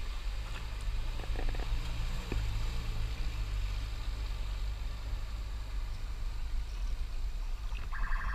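Classic Jeep's engine running steadily at low revs as it wades through knee-deep floodwater, with water sloshing and spraying around its wheels. A horn-like tone starts near the end.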